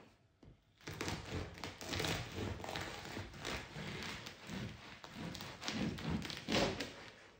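Serrated bread knife sawing through the crisp crust of a freshly baked baguette on a wooden cutting board: an uneven crackling, crunching rasp with sharper knocks, starting about a second in and easing off near the end.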